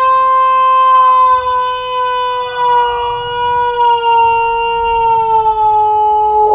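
A young man's long, held yell on one vowel, an excited "ohhh", kept at a steady pitch that sinks slowly.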